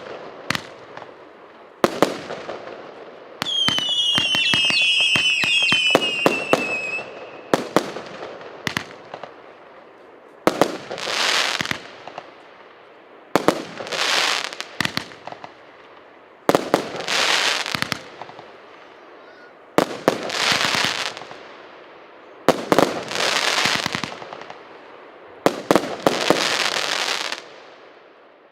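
A 100-shot consumer fireworks cake firing. It opens with sharp bangs and a volley of falling whistles a few seconds in. After that comes a steady series of sharp reports, roughly every three seconds, each followed by about a second and a half of crackling burst.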